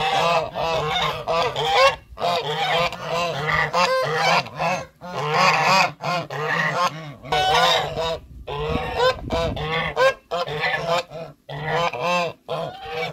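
A flock of geese honking: many short calls in quick succession, often overlapping, with brief pauses between bouts.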